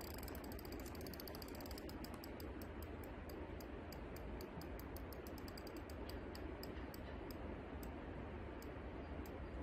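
Spinning reel's drag clicking rapidly as a large hooked carp pulls line, the clicks thinning to a scattered few toward the end, over a steady low hiss.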